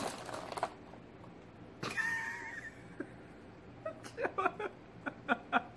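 Plastic snack packaging crinkling as a seaweed-snack tray is opened, then a brief high-pitched squeal about two seconds in. Near the end, short bursts of laughter.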